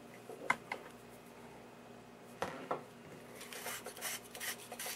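Faint handling noises from a Fluke 80K-40 high-voltage probe and its cable: a few light clicks, then a run of quick rubbing and scraping ticks as the plastic probe body is turned in the hands.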